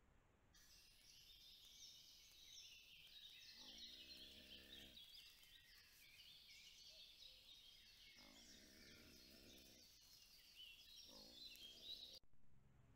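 Faint chorus of small songbirds singing in woodland, picked up by a trail camera's microphone. Three lower, rough animal calls sound about three seconds in, near eight seconds and near eleven seconds, and the recording cuts off suddenly near the end.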